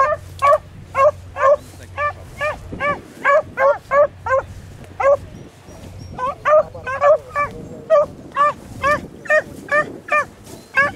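Beagles baying while running a rabbit's trail: a rapid string of short, high yelping calls, about two to three a second, broken by brief pauses about halfway through.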